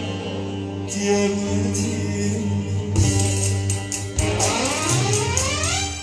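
Turkish folk-style song on a bağlama with backing music. The vocal fades out, and from about halfway the bağlama is struck in quick strokes, with a rising sweep in the music near the end.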